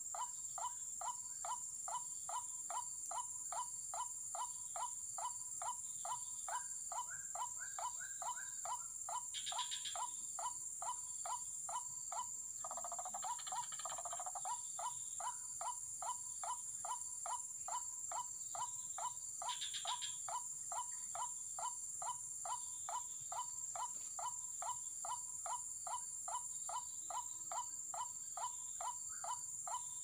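White-breasted waterhen calling: a monotonous series of short 'kook' notes, about three a second, with a harsher call breaking in around the middle. Over it runs a steady high-pitched insect drone.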